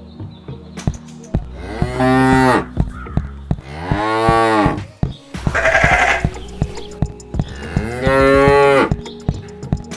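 Cow mooing three times, each moo about a second long and rising then falling in pitch, with a shorter rough, breathy call between the second and third.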